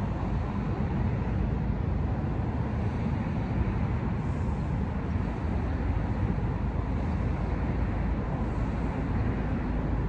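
Steady outdoor background noise, strongest at the low end, with no distinct events.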